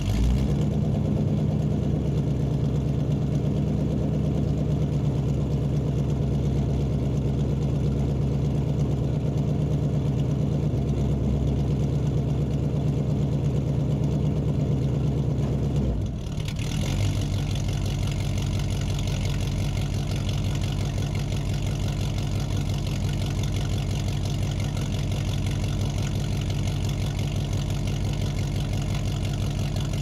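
Muscle car engine idling steadily, recorded in a large room. About halfway through, the running dips for a moment, then settles into a steady idle again with a brighter, rougher edge.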